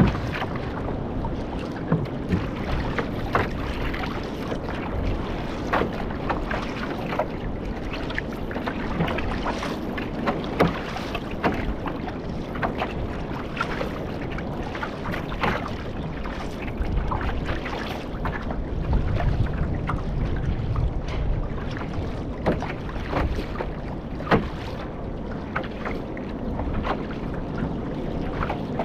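Water splashing and slapping around a one-person outrigger canoe, with irregular sharp splashes from the paddle strokes. Wind noise hits the microphone and is heavier about two-thirds of the way through.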